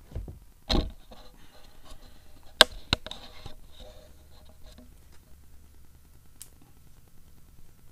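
Handling noise as a small action camera is moved and set in place: a dull thump about a second in, then two sharp clicks close together, with light rustling after them.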